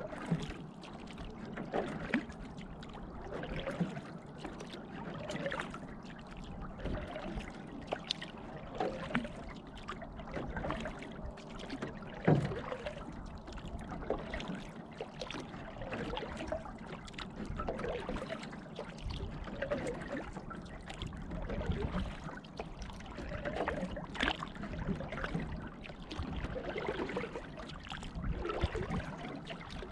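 Canoe paddle strokes in calm lake water: a swish and a trickle of drips roughly every couple of seconds. A single sharp knock comes about twelve seconds in.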